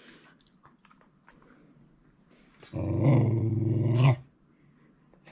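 A dog's drawn-out low vocalization: one steady-pitched sound lasting about a second and a half, starting a little past the middle.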